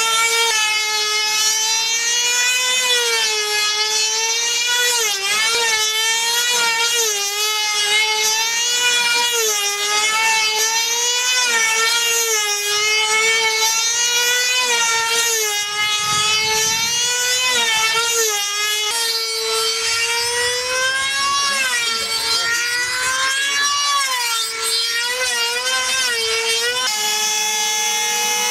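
Small two-stroke model engine of a control-line combat airplane running at full speed, a high whine whose pitch rises and falls with each lap as the plane circles on its lines. Near the end a second engine joins with a steady, unchanging note, as a model is held running on the ground ready for launch.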